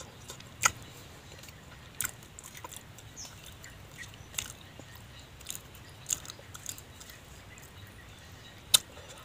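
Close-up eating sounds of a cooked sweet potato being peeled by hand and chewed, with a few short, sharp smacking clicks of the mouth; the loudest comes near the end.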